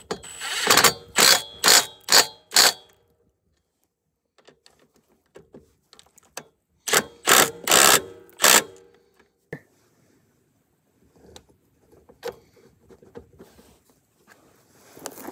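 Hand ratchet wrench running a nut onto the axle shaft: two runs of about five quick clicking strokes, roughly two a second, the second run starting about seven seconds in.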